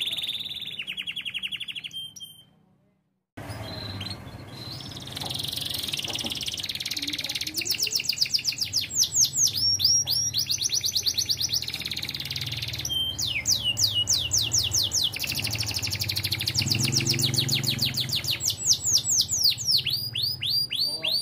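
Domestic canary singing in the high 'ting ting' style: long, fast trills of sharp notes that sweep downward, repeated in rolls. The song breaks off briefly about two seconds in.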